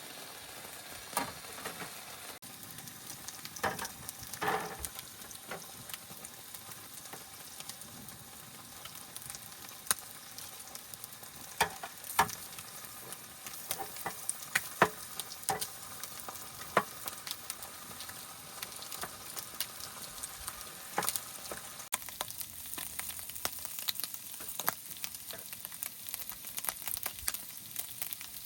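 Food sizzling in a frying pan, a steady hiss broken by scattered sharp clicks and pops.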